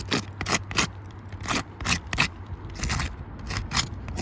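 About a dozen short scraping strokes, one after another at uneven spacing, against the gritty granule surface of asphalt roof shingles, the sound of creased shingles being marked off. A steady low hum runs underneath.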